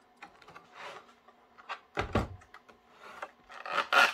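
A clear plastic display box handled on a wooden tabletop: a soft knock about halfway through, then rubbing and rustling of the plastic, loudest near the end.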